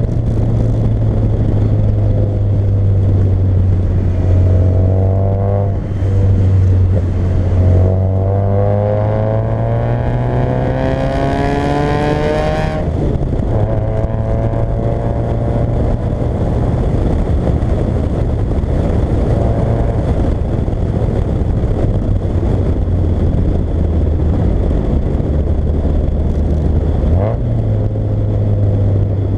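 Fiat Coupé 1.8 16v four-cylinder engine running while the car is driven. The revs rise through short pulls with brief dips near 6 and 8 seconds, climb hard until about 13 seconds, then drop and hold steady with the revs easing.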